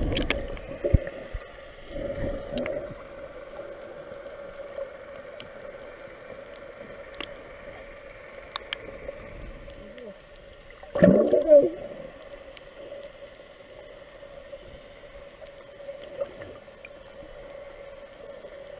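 Underwater sound picked up by a submerged camera: water gurgling over a steady hum, with a loud burst of bubbling about eleven seconds in.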